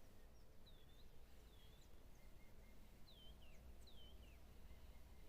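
Faint bird calls: short whistled notes that dip in pitch, repeated about once a second, over a low steady background rumble.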